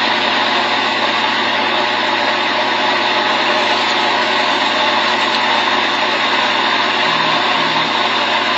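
Boat engine running steadily under a loud, even rushing noise.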